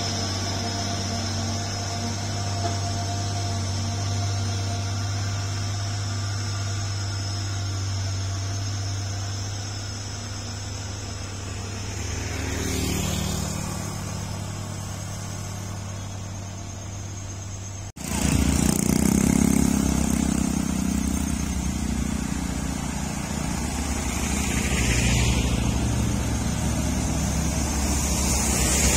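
Heavy diesel truck engines running steadily at low revs, with a motorbike passing about halfway through. After a sudden cut, louder traffic of cars and motorbikes passes on the road.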